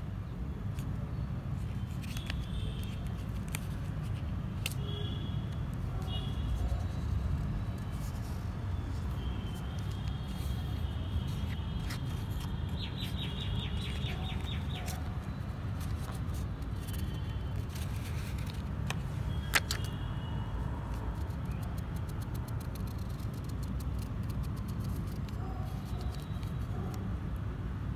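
Outdoor background of a steady low rumble with birds chirping now and then, including a quick trill about halfway. Over it come faint clicks and rustles of a paper label being wrapped around a plastic bottle, and one sharp click about two-thirds of the way through.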